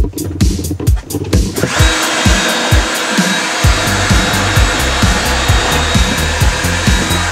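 Electric drill boring large holes, starting about two seconds in and running steadily with a high whine. Background music with a steady beat plays throughout.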